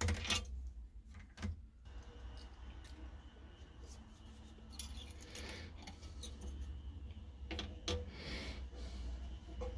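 Light clicks and clatter of small hard objects being handled, over a steady low hum.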